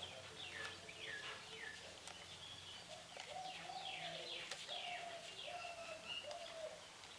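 Birds chirping in the background: many short notes sliding down in pitch, repeated throughout, over a lower wavering call.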